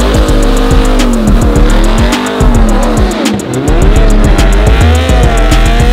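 Music with a steady beat laid over vehicles doing burnouts: engines revving hard with tyres spinning and squealing on pavement.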